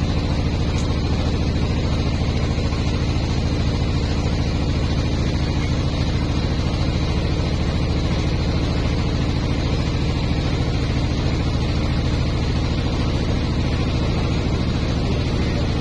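Motorboat engine running steadily at an even speed, a constant low drone that does not change.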